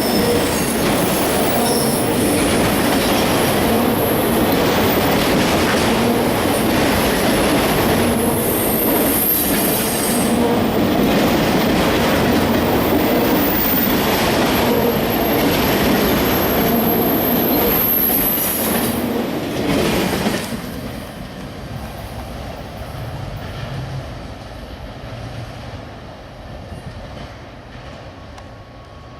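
CSX freight train's cars rolling past, with high-pitched wheel squeal and clatter over the rails. About twenty seconds in the sound drops away sharply to a fading rumble as the end of the train goes by.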